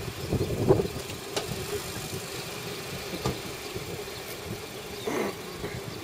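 Engine of an internal-combustion Nissan hatchback running at low speed as the car reverses slowly away: a steady hum, with a few faint clicks.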